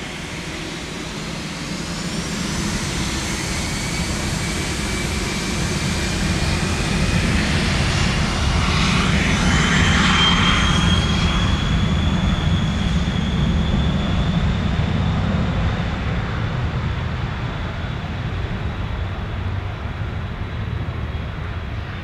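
Cessna Citation XLS+ business jet's twin Pratt & Whitney PW545C turbofans spooling up to takeoff power: a whine rising in pitch over a steady roar, loudest about halfway through, then fading as the jet rolls away down the runway.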